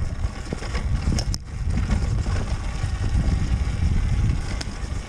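Rumble of wind buffeting the camera microphone and the ride over rough dirt on a Talaria Sting MX4 electric dirt bike, whose motor is nearly silent, with two sharp knocks from the bike over bumps, one about a second and a half in and another near the end.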